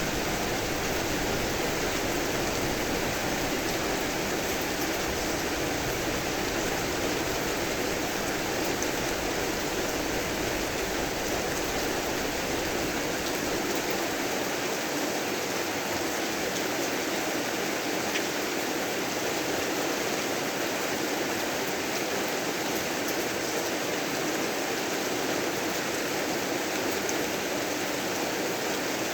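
Heavy rain falling steadily, an even rushing hiss with no thunder.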